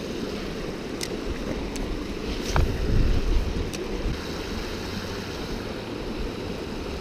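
Shallow river water running fast over rocks, a steady rushing, with a low rumble of wind on the microphone and a few light clicks.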